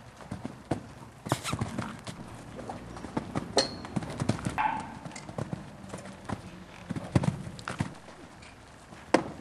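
Hoofbeats of a loose horse cantering and bucking on an arena's sand footing: irregular thuds of hooves striking the ground.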